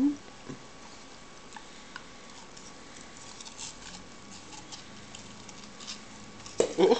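A rat terrier licking and biting at a watermelon popsicle: soft, scattered wet clicks and ticks of tongue and teeth on the ice. Near the end a short, louder cry falls in pitch.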